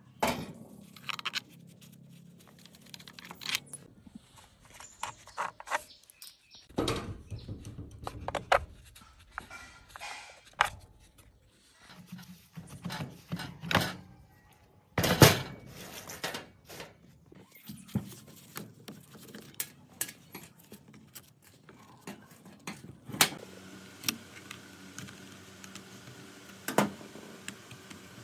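Metal clinks, knocks and rattles of an old electric cut-off saw being taken apart by hand: tools on screws and housing parts being lifted and set down, with one louder knock about halfway.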